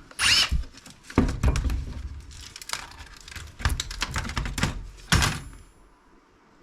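Plastic clicks and knocks from laptop parts being handled and pried apart to remove a small circuit board, with a short squeaky scrape near the start; the knocking stops about a second before the end.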